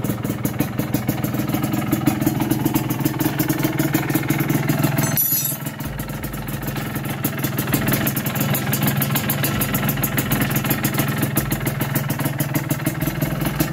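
Suzuki TS125's single-cylinder two-stroke engine idling steadily, with a brief break about five seconds in.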